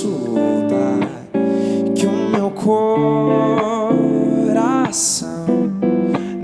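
Pop-rock/MPB song played by a band, a male voice singing held notes with vibrato over guitar, bass and drums.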